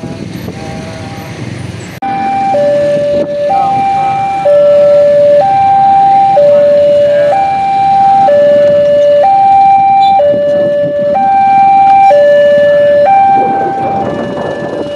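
Railway level-crossing warning alarm starting about two seconds in: an electronic two-tone signal alternating steadily between a high and a low tone, about one second each. It signals that a train is approaching and the crossing is closing.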